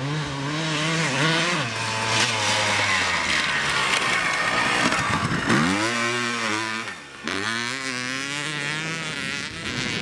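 Suzuki RM250 single-cylinder two-stroke motocross engine revving hard under acceleration, its pitch climbing and falling again and again with throttle and gear changes. It drops away sharply about five seconds in, then picks up again, with a brief break about seven seconds in.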